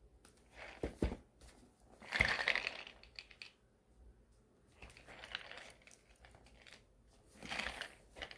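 Parcel packaging crinkling and rustling in four short bursts as it is handled, with a couple of sharp knocks about a second and two seconds in.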